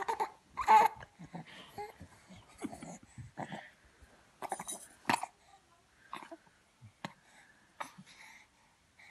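A young infant babbling and cooing in short, irregular bursts, mixed with sharp kissing smacks and breathy sounds as an adult kisses her hands and face. The loudest outburst comes about a second in.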